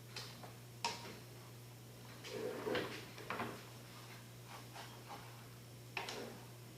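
Scattered light knocks and clatter of a cooking utensil against a pan while eggs are being cooked and stirred, with a busier patch of clatter about halfway through. A steady low hum runs underneath.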